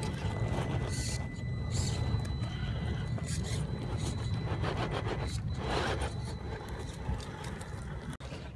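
Tamiya CC-01 RC crawler's electric motor and gearbox running as its tyres grind and scrape over loose rocks, with scattered small clicks and crunches of stone.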